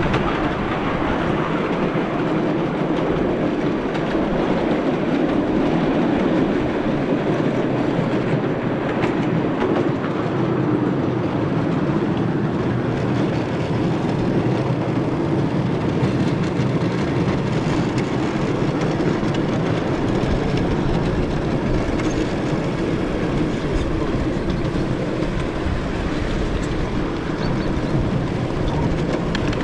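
Miniature railway train running along the track: a steady, even rumble of wheels on rail.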